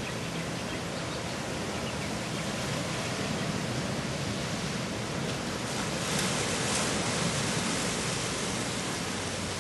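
Ocean waves washing in over black lava rocks at the shoreline: a steady rushing wash that swells with a larger surge about six seconds in.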